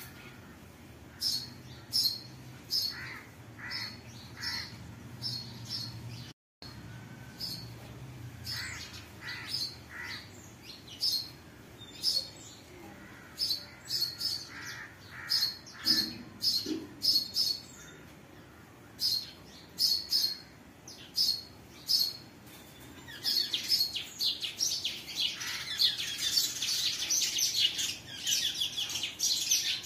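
Birds chirping: short, repeated high chirps, thickening into a dense chorus of many birds twittering at once about two-thirds of the way in. The sound cuts out completely for a moment about six seconds in.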